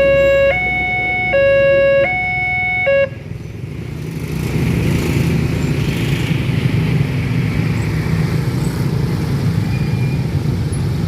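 Level-crossing warning siren sounding a two-tone alternating hi-lo wail, which stops about three seconds in. A low rumble of road vehicles then builds and carries on steadily.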